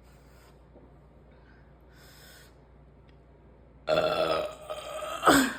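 A person burping after gulping Coke Zero: after a few quiet seconds, one long, low, loud belch lasting nearly a second, then a short vocal sound falling in pitch near the end.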